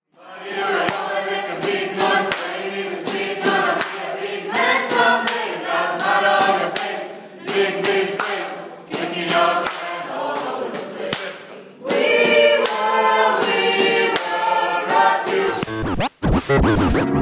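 A choir singing in several voice parts, with an abrupt jump to another passage about twelve seconds in. Near the end the singing breaks off into a short glitchy sweep.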